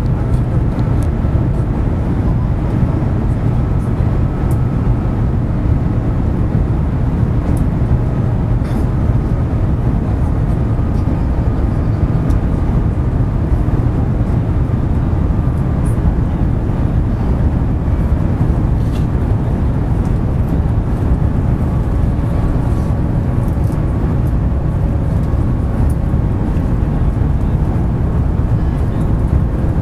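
Cabin noise inside the Shanghai Maglev, a Transrapid magnetic-levitation train, running at speed: a loud, steady low rumble and rush, with a faint whine that slowly falls in pitch.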